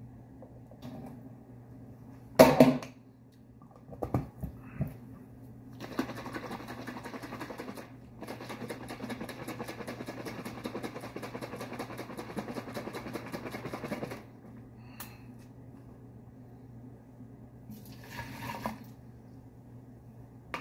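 A sharp knock about two seconds in and a few lighter knocks, then hands being rubbed together briskly for about eight seconds, a dry rapid brushing made of several strokes a second. A short rustle comes near the end.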